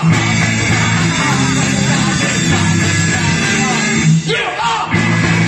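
Punk rock band playing loud, with guitar prominent, dropping out briefly about four seconds in before the full band comes back in.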